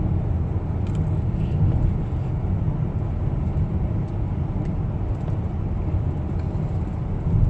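Steady low road and engine rumble of a car heard from inside the cabin while driving.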